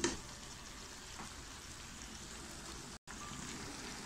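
Chopped tomatoes, onion and green chillies cooking in olive oil in a nonstick pan, giving a faint, steady sizzle. A short tap is heard at the start, and the sound cuts out briefly about three seconds in.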